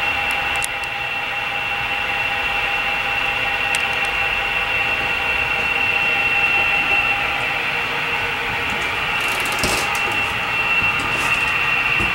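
HO-scale model trains running: a steady high-pitched whine over a rushing track noise, with a few light clicks about three-quarters of the way through.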